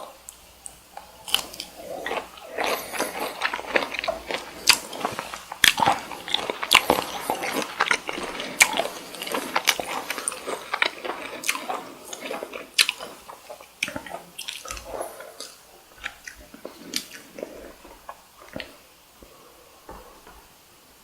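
Close-miked chewing of cocktail shrimp: moist bites, mouth clicks and crackles. They are busiest through the first half and thin out to scattered clicks toward the end.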